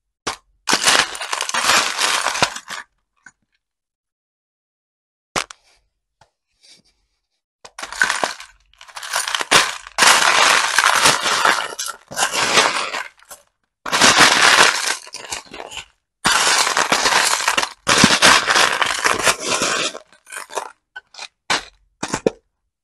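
Small plastic beads clattering and clinking as a metal melon-baller scoop is stirred and scooped through them in a plastic tray. It comes in several stretches a second to a few seconds long, with silent pauses between, and a single sharp click about five seconds in.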